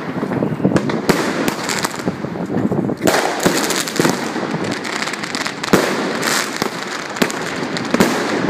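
New Year fireworks going off all around: a continuous crackle with many separate sharp bangs scattered through, growing denser and more crackly from about three seconds in.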